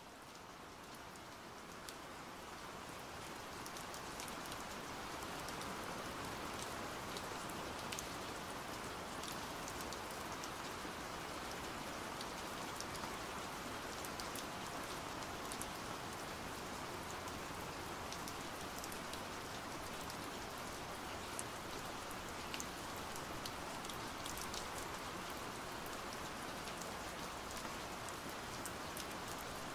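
Steady rain falling: an even hiss peppered with sharp little drop ticks, swelling up over the first few seconds and then holding steady.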